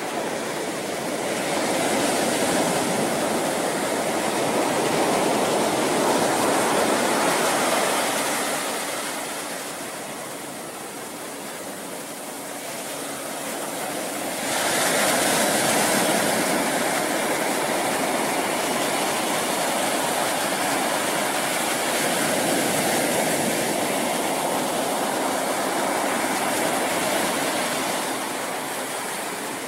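Pacific Ocean surf washing onto a beach: a steady rush of breaking waves that swells and eases, then jumps louder about halfway through.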